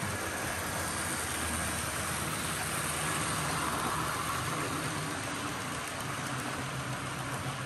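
Electric model train, a diesel locomotive pulling passenger cars, rolling past on the track: a steady rush of wheels on the rails over the low hum of the locomotive's motor, a little louder as the locomotive goes by.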